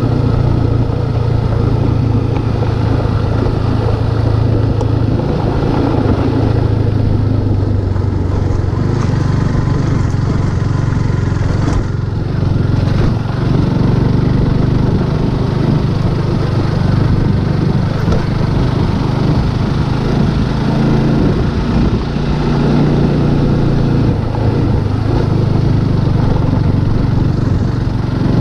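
Motorcycle engine running steadily while riding, its note shifting a little now and then.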